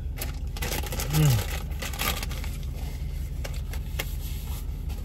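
Rustling and crinkling of food packaging during a meal, with a short falling "mm" from a voice about a second in, over a steady low hum.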